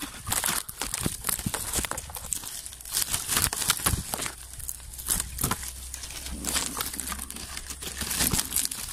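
Dry and green oil palm fronds rustling and crackling as a hand pushes through and pulls at them, with irregular sharp snaps of leaflets.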